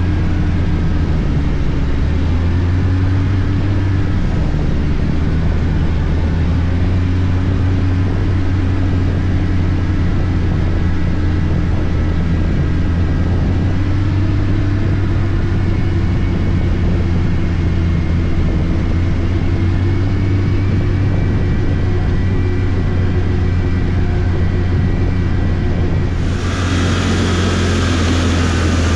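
Arctic Cat F1100 turbo snowmobile engine running steadily under way, its pitch wandering only slightly with the throttle. About 26 seconds in, a hiss joins it.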